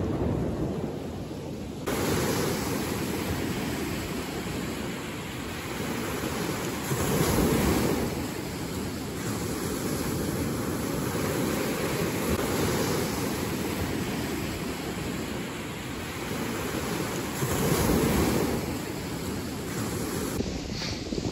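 Small Lake Michigan waves breaking and washing up on a sandy shore, with wind buffeting the microphone. The surf swells louder twice, about a third of the way in and near the end.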